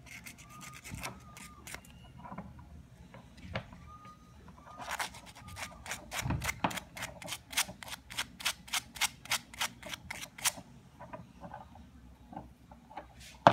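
Fine sandpaper rubbed back and forth on a small brass switch contact, scraping burnt black deposits off it so the trigger switch will make good contact again. A few scattered strokes at first, then a quick regular run of about three or four strokes a second in the middle, fading to fainter strokes near the end.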